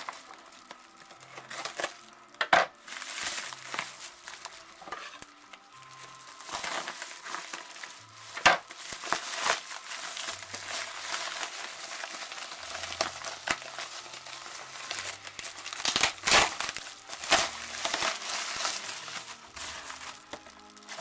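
Packing paper crinkling and rustling as a packed layer is pulled out of a shipping box, with several louder sharp crackles.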